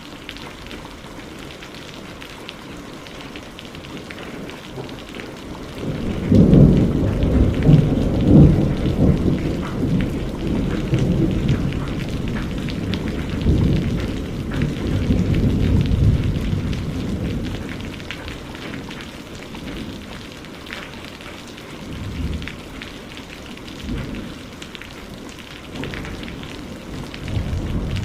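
Steady rain with a long roll of thunder starting about six seconds in. The thunder is loudest in its first few seconds and rumbles away over about ten seconds, and fainter rumbles come later.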